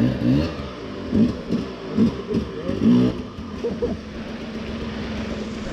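Husqvarna enduro motorcycle engine blipped with the throttle, its pitch rising and falling about once a second, then settling to a steady idle a little past halfway.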